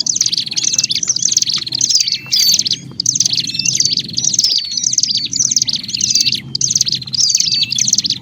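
Agitated, noisy calling of ciblek gunung and prenjak prinias, the kind of call used to lure wild birds. Fast high chirps and swooping notes come in dense phrases about twice a second, over a low background rumble.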